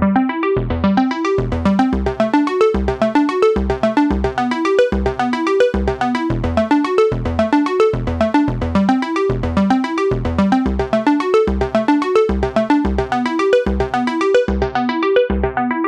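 Late-80s-style synthesizer music: a fast repeating bass line under short, plucked keyboard-synth notes in a steady rhythm.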